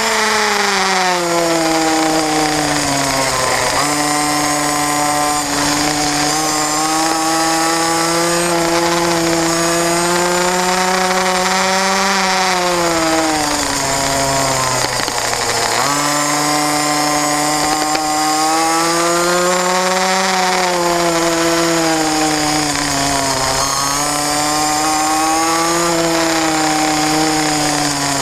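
Racing kart engine heard on board at race pace, its pitch dropping for the corners and climbing again on the straights: a drop near the start, a longer dip about halfway through, and shorter dips later on.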